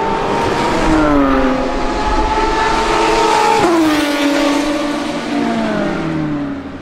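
Porsche 911 GT America's 4.0-litre flat-six race engine running loud at high revs as the car passes. The pitch climbs, drops sharply about halfway through, then keeps falling away.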